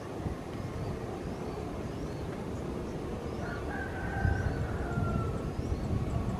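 Distant Boeing 737 jet engines rumbling low as the airliner rolls down the runway. A rooster crows once for over a second, about halfway through, and small birds chirp faintly.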